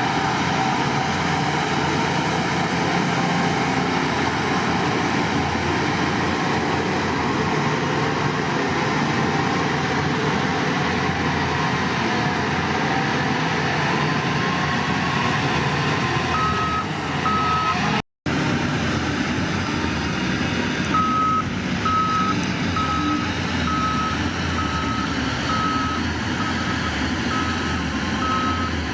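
Heavy diesel earthmoving machinery running steadily under load. A reversing alarm beeps about once a second, starting a little past halfway, with a brief break in the sound just after it begins.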